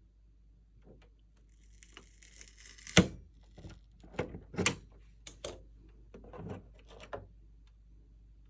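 Hands working on the plastic parts of a Xiaomi Mi Air Pro air purifier during a sensor swap: a brief rustle, one sharp click about three seconds in, then several lighter clicks and knocks.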